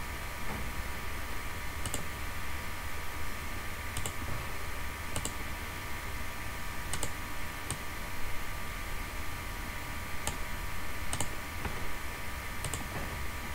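Computer mouse clicking, about eight single clicks at irregular intervals, over a steady electrical hum.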